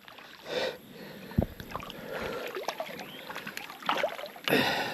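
Shallow river water splashing and sloshing as a small hooked fish is brought in by a wading angler. Scattered light clicks, a low knock about a second and a half in, and a louder splashy burst near the end.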